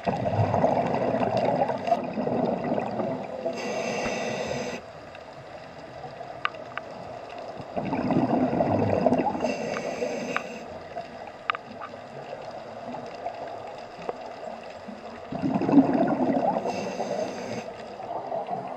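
Scuba diver breathing through a regulator underwater: three rounds of bubbly gurgling breaths, about seven seconds apart, each ending with a short hiss.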